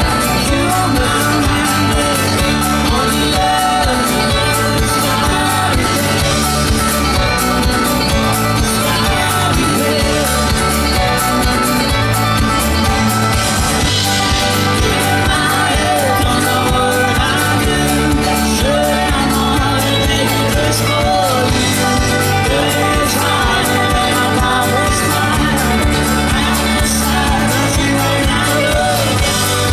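Live folk band playing amplified on stage, with sung vocals over strummed acoustic guitar, guitar and keyboard and a steady beat, heard from within the audience.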